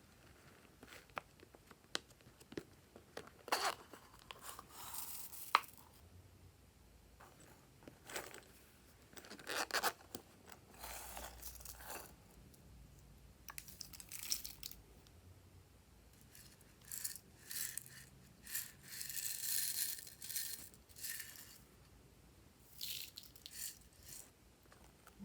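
Hands working slime, stretching and squishing it: irregular bursts of sticky crackling, with small clicks and pops between them.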